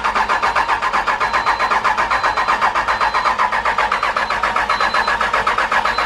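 Starter cranking the school bus's 5.9 Cummins diesel in an even rhythmic chug without the engine catching, then cutting off abruptly; the engine won't fire because injector 1 still isn't getting fuel.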